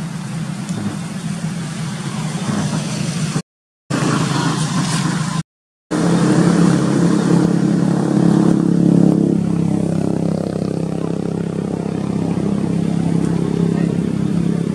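A motor vehicle engine running steadily, with the sound cutting out to silence twice briefly in the first half.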